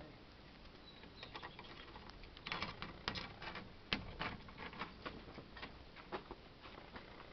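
A cat rubbing its body and fur against the camera: scratchy rustles and irregular soft taps, densest and loudest in the middle.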